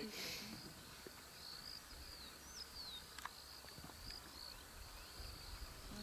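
Faint bush ambience: a steady, high-pitched insect drone, with a few short descending bird whistles about two and a half to three seconds in.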